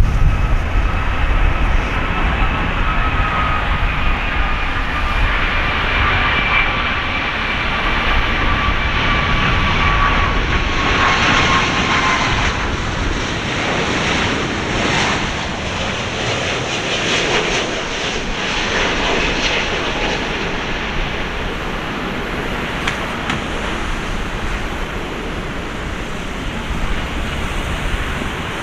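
Jet airliner (Boeing 777-300, Rolls-Royce Trent 800 turbofans) on landing approach. A high engine whine slides slowly down in pitch as the plane passes, then gives way to a broad rushing rumble that eases off gradually.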